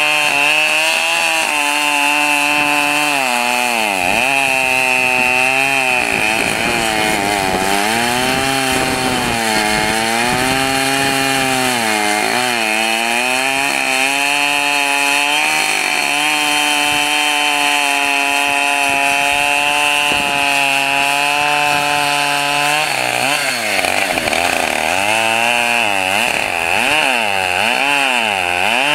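Husqvarna 572XP two-stroke chainsaw cutting into a maple log. The engine's pitch keeps sagging and climbing back as the chain bogs down in the wood and frees up, with a steadier stretch in the middle.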